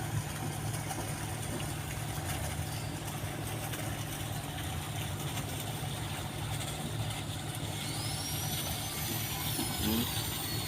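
Boat's diesel engine idling with a steady low hum, run on test during repairs. Near the end a faint high tone rises and falls over it.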